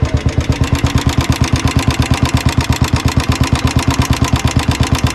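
Vintage Royal Enfield Bullet's single-cylinder four-stroke engine idling with a steady, even beat.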